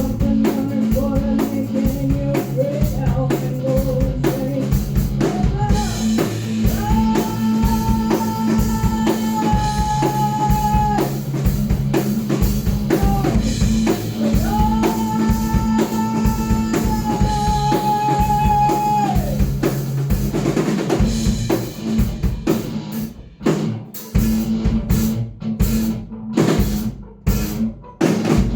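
Alternative-metal band playing: drum kit, bass and guitar, with a long held high note twice in the middle. Near the end the band plays short stop-start hits separated by brief gaps.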